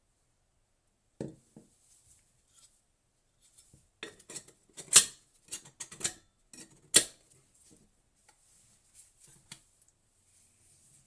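Electric kettle being handled: a scatter of light clicks and clinks of hard parts, with two sharp ones about five and seven seconds in.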